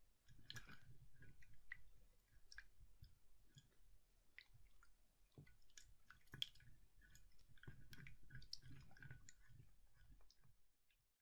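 Slime being squished and worked by hand: faint, irregular sticky clicks and small pops, with one sharper snap about six and a half seconds in.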